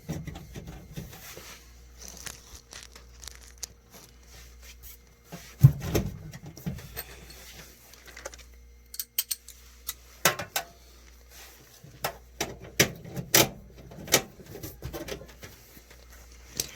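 Handling noise from work on a gas dryer: scattered clicks, taps and knocks of metal parts and tools. There is a louder thump about six seconds in and a run of sharp clicks in the second half.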